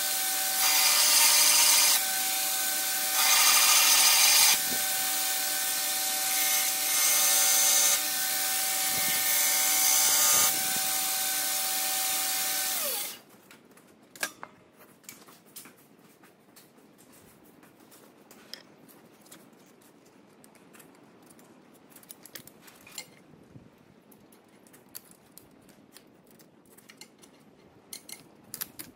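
Belt grinder running with a steady whine, growing louder in several stretches as a forged steel blade is pressed to the belt. About 13 seconds in the grinder is switched off and its tone drops away, leaving a quiet shop with a few faint clicks.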